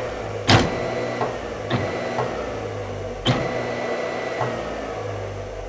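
New 1.5 HP Marathon electric motor switched on for its first test run with no pulley or load, running with a steady hum and whine and a few sharp knocks. About four and a half seconds in it is switched off and starts winding down, its whine falling in pitch and fading.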